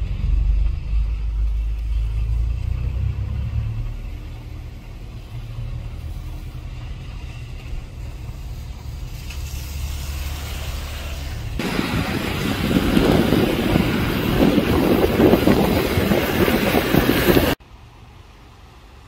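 Wind buffeting the microphone outdoors, first as a steady low rumble, then, about twelve seconds in, as a much louder rushing hiss that cuts off suddenly near the end, leaving a quieter steady background.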